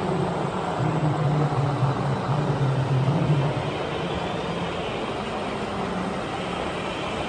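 Steady engine-like hum over a constant rushing noise; the hum drops away about three and a half seconds in.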